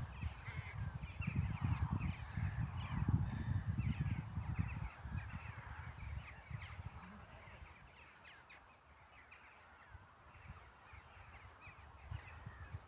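A flock of crows cawing, many short calls overlapping, with a low rumble under the first five seconds or so.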